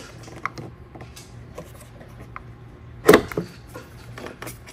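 Plastic battery-cable plug on an EcoFlow Delta Pro Ultra being unlatched with its release button and worked out of its port: light plastic clicks and creaks, with one sharp click about three seconds in.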